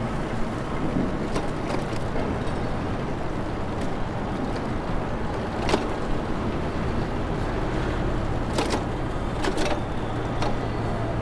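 Street noise heard from a moving bicycle: wind rushing over the microphone over a steady low rumble of city traffic, with a few sharp clicks.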